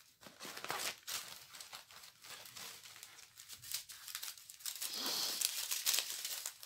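Plastic packaging of a diamond painting kit crinkling and rustling as it is handled, in quick irregular crackles.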